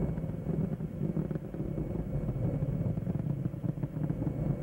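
Helicopter cabin noise: the steady low rumble of the rotor and engine, with a fast flutter.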